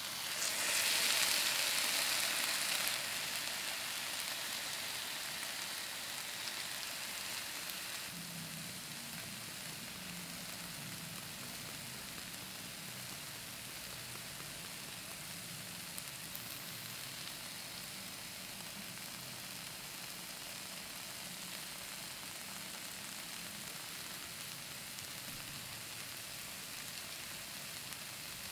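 Canned whole tomatoes tipped into a hot frying pan of sautéed diced vegetables. The sizzle flares up loudly in the first few seconds, eases off over the next several, then settles into a steady, quieter sizzle.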